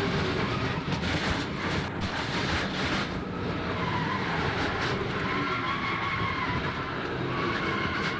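Onboard audio from inside a NASCAR Busch Series stock car spinning during a crash: race cars rush past at speed and tires squeal in a wavering high tone, with a few sharp knocks about one to three seconds in.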